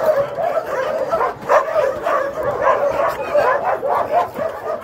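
Many shelter dogs barking together in an excited greeting, the calls overlapping without a break.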